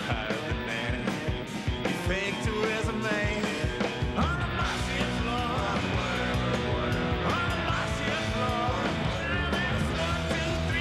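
Rock music: a sung melody over bass and drums.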